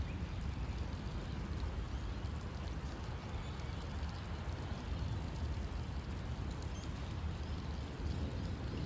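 Steady rain falling, with a constant low rumble beneath it and faint scattered drop ticks.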